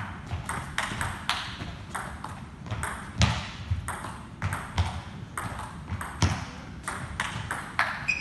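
Table tennis rally: a celluloid-type ping-pong ball clicking off the bats and bouncing on the table in a steady quick run of sharp ticks, several a second.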